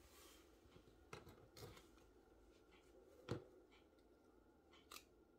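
Near silence with a few faint, scattered clicks and taps, the loudest about three seconds in.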